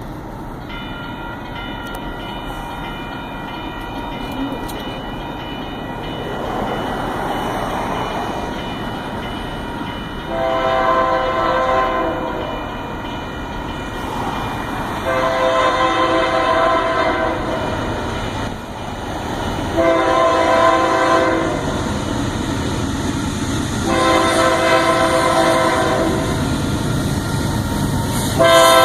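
Union Pacific freight locomotive approaching with a building rumble, then sounding its multi-note air horn in four blasts: long, long, short, long. That is the pattern of a grade-crossing warning. A fifth blast begins at the very end.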